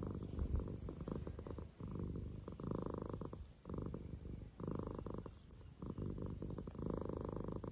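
Domestic cat purring, a low rumble that swells and dips with each breath in and out, about every second and a half.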